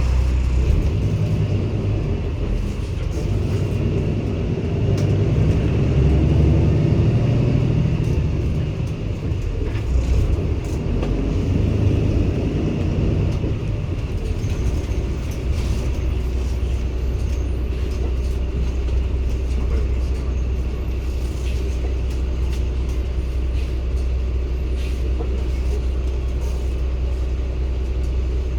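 Cummins ISB 280 PS six-cylinder diesel of a Daewoo BS090 city bus running. Through the first half it swells and drops as it works under load, then about halfway through it settles into a steady low drone, with light rattles and clicks over it.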